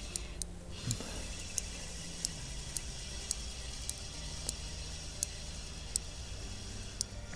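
Spinning reel on a feeder rod being wound in to retrieve a hooked fish, a sharp light click about every two-thirds of a second over a faint low hum.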